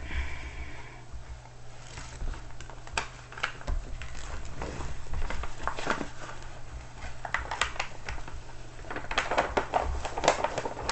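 A diamond painting canvas being handled: scattered light rustles and taps from the canvas and its plastic cover sheet, busier near the end.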